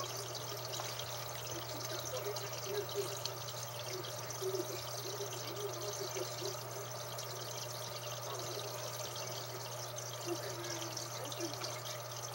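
Aquarium filter or aeration running: water trickling and bubbling steadily over a constant low hum.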